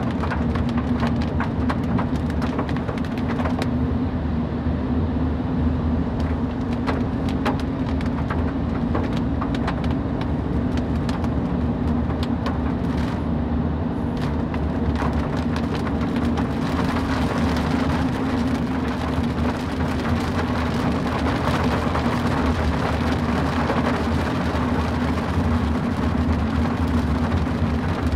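Car driving in the rain, heard from inside: a steady engine and road drone under the hiss of rain, with many irregular raindrop ticks. The hiss of rain and tyre spray grows louder about two-thirds of the way through.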